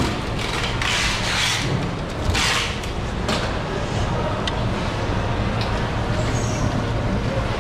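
Busy street background: a steady low rumble of traffic, with swells of hiss from passing vehicles about a second in and again at two and a half seconds.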